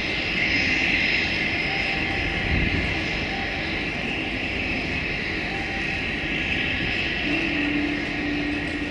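Cessna 208 Caravan floatplane's turboprop engine running steadily as the plane moves across the water on its floats, with a high steady whine over the engine and propeller noise. A steady low tone joins about seven seconds in.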